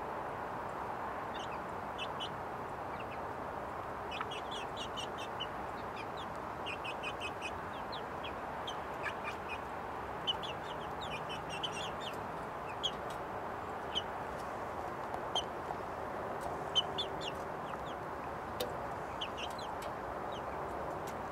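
Young pullets, about seven weeks old, giving short high cheeps in scattered little runs over a steady background rush.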